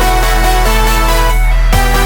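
Electronic background music: held synth notes over a steady deep bass, with a falling pitch drop starting near the end.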